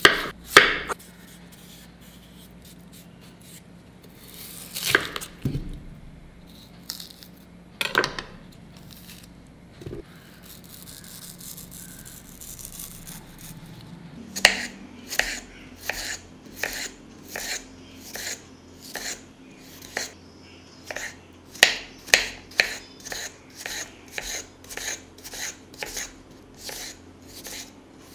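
Chef's knife cutting a peeled chayote on a cutting board: a few separate cuts at first, then from about halfway a steady run of chopping strokes, about two a second, each knocking on the board.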